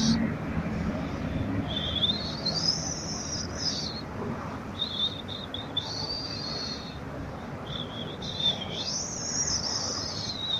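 A man making extremely high, whistle-like notes in a chant. He holds several long notes, each sliding up at the start and falling away at the end, with short breaks between them.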